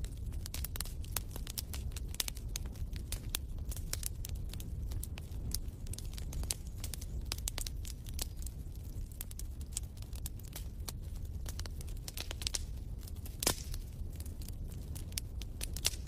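Wood fire crackling in a fireplace: irregular sharp pops and snaps over a steady low rumble, with one louder snap about thirteen seconds in.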